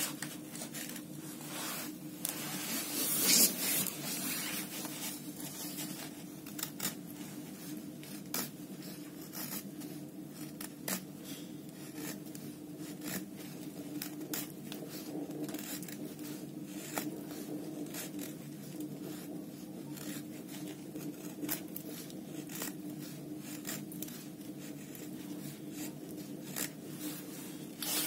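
Enlan M07 folding knife blade shaving thin curls off a wooden stick to make a feather stick: a long run of short, irregular scraping cuts, a little louder about three seconds in.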